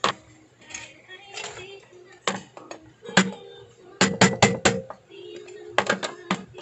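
Kitchen knife stabbed repeatedly into the lid of a tin can to punch it open: sharp metallic clanks, some single and some in quick runs of three or four, each leaving a short ring from the can.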